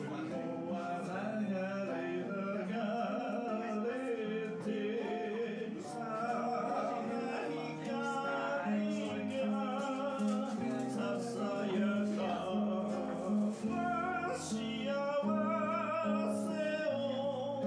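A man singing into a microphone while playing an acoustic guitar, with a wavering vibrato on his held notes.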